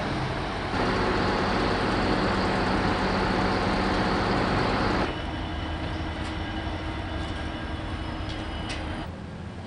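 A CN freight train with diesel locomotives rolling past: a steady rumble with thin, high wheel squeals and a few sharp clicks. It is preceded by a loud, even rush of noise and cuts off abruptly near the end.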